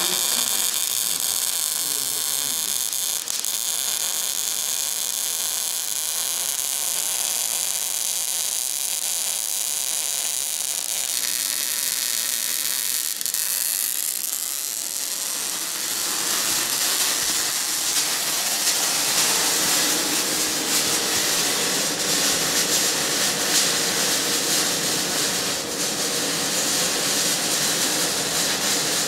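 Angle grinder running steadily against metal, a high whine over a hiss. The sound shifts about halfway through and becomes louder and fuller from about sixteen seconds in.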